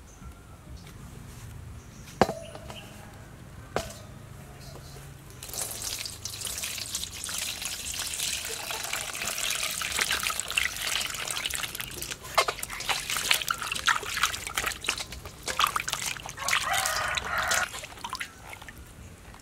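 Water running from a hose into a steel basin and splashing as hands wash heads of purple cabbage. It starts about five seconds in and eases off near the end. Before it come two sharp knocks, the first the loudest sound here.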